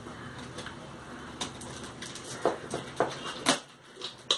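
Cardboard box being pulled and torn open by hand: irregular scraping and rustling with several short sharp crackles, most of them in the second half.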